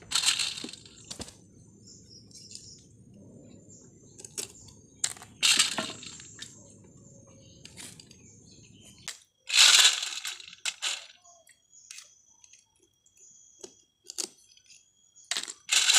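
Freshwater snail shells clinking and rattling against a stainless steel bowl in water as handfuls are scooped out, four times about five seconds apart, with small clicks and cracks between as the shell tips are snipped off.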